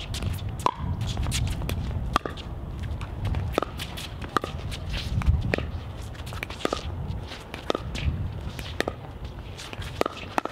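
Pickleball paddles striking the hollow plastic ball in a rally: about ten sharp pops, roughly one a second, with two quick ones near the end. Players' footsteps on the hard court run underneath.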